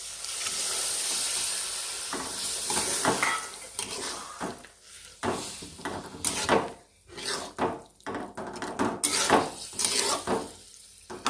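Boiled chickpeas sizzling as they go into hot frying masala, with a steady hiss for about the first three seconds, then a spoon stirring them through, clattering and scraping irregularly against the pan.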